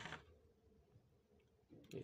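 Near silence: room tone, with a few faint clicks at the very start, typical of small plastic parts being handled.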